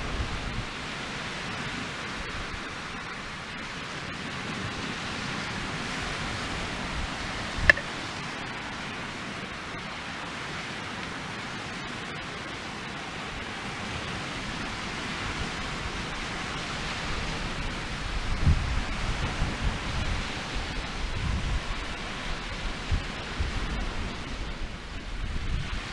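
Steady rushing outdoor noise of wind, with gusts buffeting the microphone from about halfway through, and a single sharp crack about eight seconds in.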